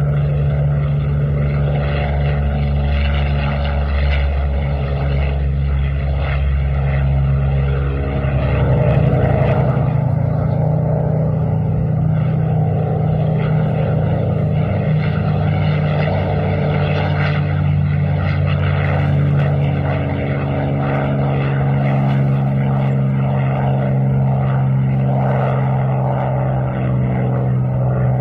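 Piston-engined WWII fighter aircraft engines running close by, a steady propeller drone whose pitch shifts about eight seconds in.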